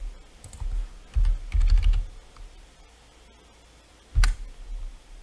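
Typing on a computer keyboard: a short run of keystrokes with dull low thumps between one and two seconds in, then a single sharp click a little after four seconds.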